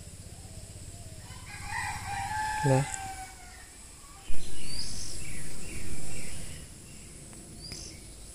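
Rooster crowing: a fainter call about two seconds in, then a louder crow of about two seconds starting around four seconds in.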